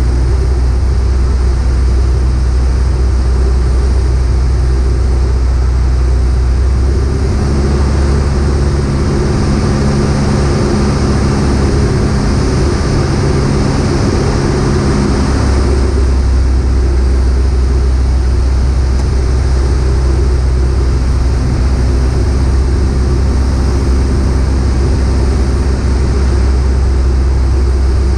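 Piper PA-38 Tomahawk's four-cylinder Lycoming O-235 engine and propeller droning steadily, heard from inside the cockpit in flight. The engine note changes about seven seconds in and returns to its earlier tone about halfway through.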